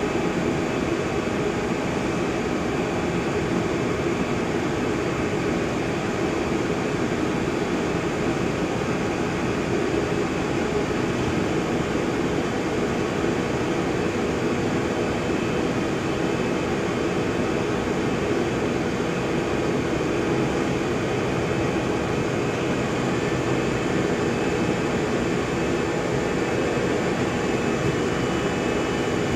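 Steady running noise of a roll-to-roll plastic-film machine, its rollers carrying the film web, with a faint high whine over it.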